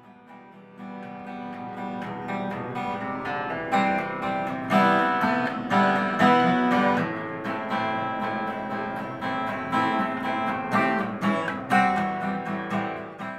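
Acoustic guitar strumming chords as an instrumental opening, starting soft and growing louder over the first few seconds, with no singing yet.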